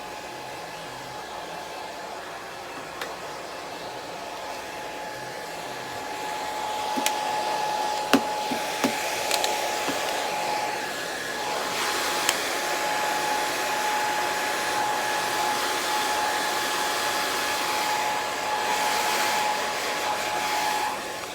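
Hair dryer blowing steadily over a dog's coat, with a steady motor whine, getting louder about six seconds in. A few sharp clicks come partway through.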